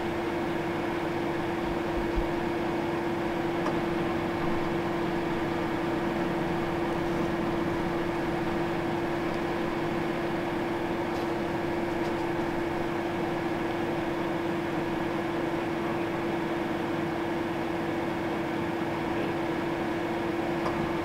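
Steady mechanical hum of a truck idling, heard from inside the cab, with one even pitched tone that holds unchanged throughout.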